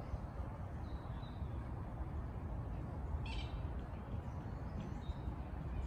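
A single short, harsh bird call about three seconds in, with a faint thin chirp about a second in, over a steady low rumble of wind or distant traffic.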